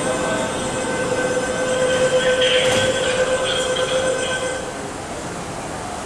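MTR SP1900 electric train with a steady two-tone electrical whine. A high squeal comes in about two and a half seconds in and lasts roughly a second and a half. The whine cuts off about four and a half seconds in, leaving a quieter rumble.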